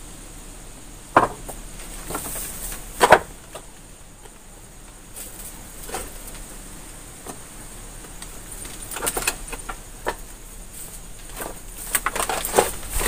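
Scattered knocks, scrapes and rustles of people moving through a doorway among loose debris. Two sharp knocks come in the first few seconds and a cluster of scrapes near the end, over a faint steady high tone.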